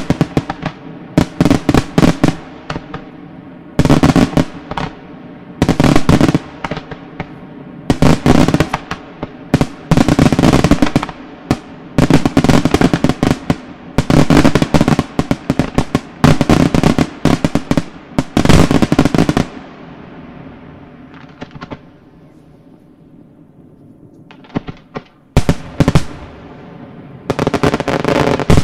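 Aerial firework shells launched and bursting in dense, rapid volleys of bangs and crackle, one cluster after another. About twenty seconds in the firing thins to a few scattered reports, then two more dense volleys start near the end.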